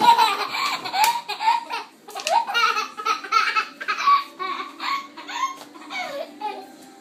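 Toddler laughing hard in a run of repeated bursts, loudest right at the start.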